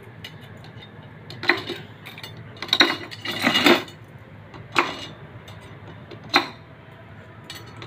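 Sharp metallic clinks and taps from steel motorcycle spokes being worked by hand, about five or six strikes at irregular spacing with a short ring after each and a cluster in the middle.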